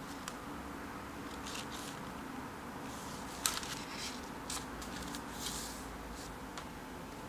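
Paper page of a spiral-bound sketchbook being turned and handled by hand: a run of soft rustles and flicks, with one sharper click about three and a half seconds in.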